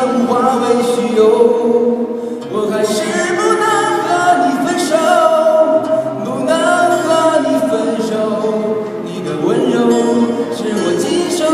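Singing: several voices sound together in harmony, steady and loud, with phrases changing every couple of seconds.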